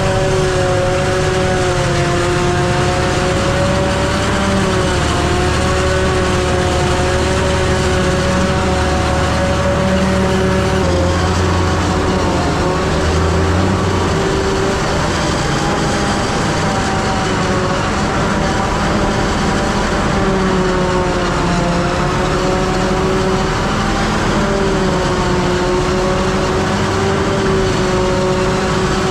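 Truck engine running while driving, a steady drone whose pitch rises and falls slightly as the revs change.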